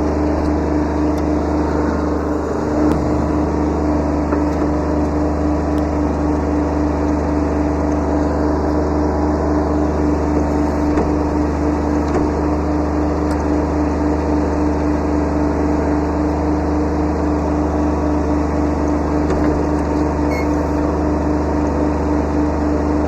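Kubota B7100 subcompact tractor's three-cylinder diesel engine running at a steady speed.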